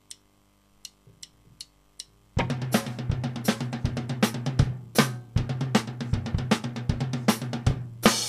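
A few faint clicks, then a rock drum kit comes in a couple of seconds in, playing a beat on kick, snare and hi-hat with cymbal hits. Right at the end the rest of the band joins in.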